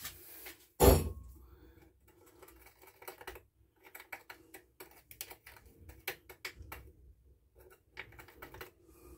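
A metal pick clicking and scraping irregularly as it picks dirt and grime out of a Homelite chainsaw where the bar mounts to the body. One louder thump comes about a second in.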